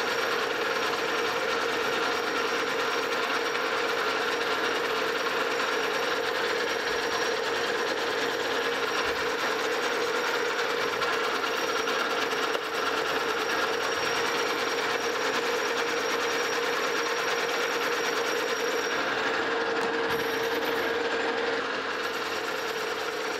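Metal lathe taking a 25-thousandths cut along the outside diameter of a cast iron Durabar pulley blank: a steady hiss of the tool cutting cast iron over the even hum of the running lathe, dropping slightly in level near the end.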